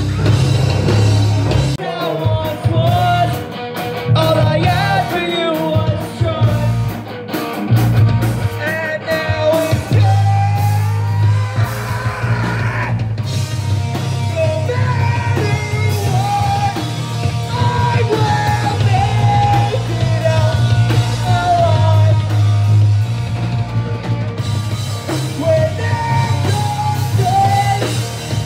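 Live rock band playing loud: drum kit and electric guitars, with a vocalist singing over them.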